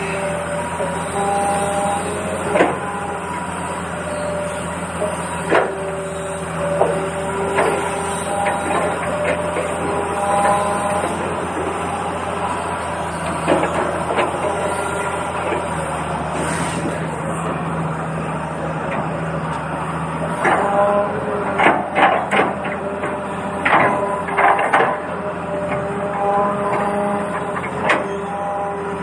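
Small electric motors of a toy excavator whirring in spurts over a steady hum, with scattered clicks and knocks of plastic parts, thickest around the middle of the second half.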